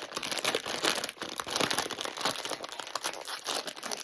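Bag of potato chips crinkling as it is handled and opened, an irregular run of crackles.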